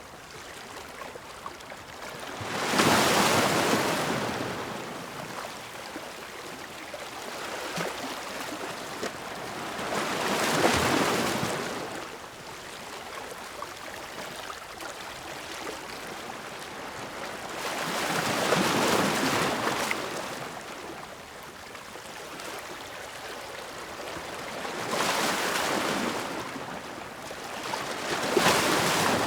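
Ocean waves breaking and washing up the shore: five surges of surf, each swelling and fading over a couple of seconds, over a steady wash of water.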